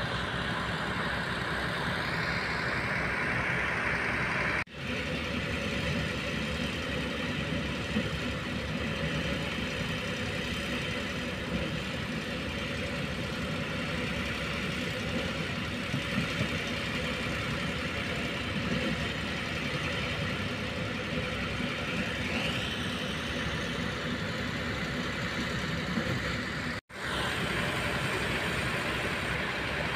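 Heavy diesel construction machinery running steadily: a Kobelco hydraulic excavator, and in the middle a concrete mixer truck beside a trailer concrete pump. There is a brief rising whine about three-quarters of the way through, and the sound breaks off abruptly twice.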